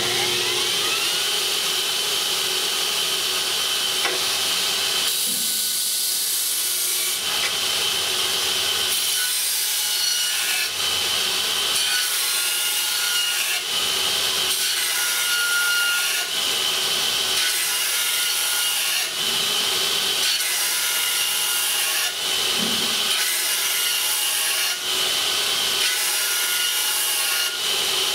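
Burr King Model 760 electric belt grinder running, with a steel lawn-mower blade held in its blade-sharpening attachment and ground against the abrasive belt in repeated passes. Its pitch rises at the very start as the motor comes up to speed.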